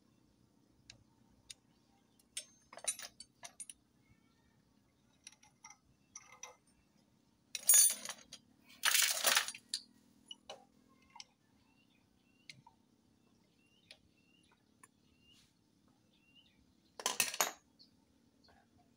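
Metal engine parts and hand tools clinking and clattering while the clutch side of a Honda Supra X 125 engine is stripped, with parts set into a metal pan. Mostly scattered light clinks, with louder clatters about 8 and 9 seconds in and one more near the end.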